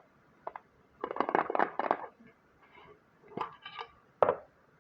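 Small metal tin of thinking putty being handled and opened: a quick run of light rattling clicks, then a few separate sharp clicks and knocks, the loudest near the end.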